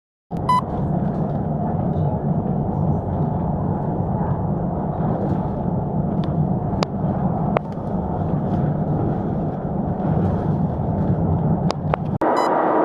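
Steady rumble of a passenger train running, heard from inside the carriage, with a few sharp clicks. It changes abruptly to a different steady noise near the end.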